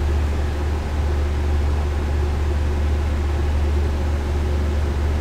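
Steady low hum with a faint even hiss, unchanging throughout, with no distinct events.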